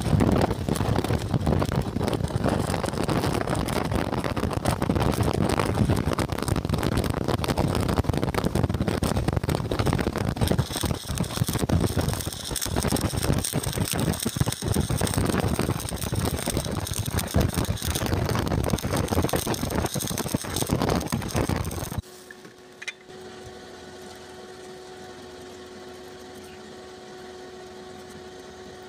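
Shielded metal arc (stick) welding with E6013 electrodes at about 130 amps: the arc crackles and sizzles steadily for about twenty seconds, then suddenly breaks off, leaving only a quieter steady hum.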